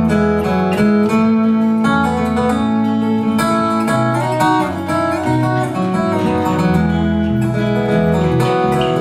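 Instrumental break in a country-folk song: acoustic guitar strummed and picked, with the chords and bass notes changing every second or two.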